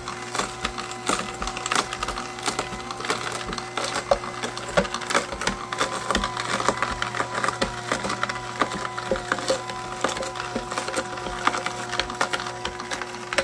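KEDEMAS AMR520 slow masticating juicer running, its motor humming steadily while the auger crushes carrot pieces with frequent, irregular cracks and snaps.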